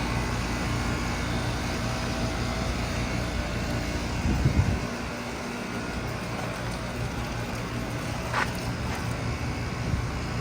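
Outdoor air-conditioner condenser units running with a steady mechanical hum. About four and a half seconds in there is a brief louder low rumble, after which the deepest part of the hum drops away.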